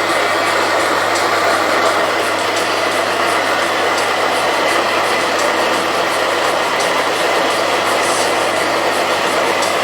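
Soybean dehulling machine running steadily: a loud, even mechanical noise with a constant low hum underneath.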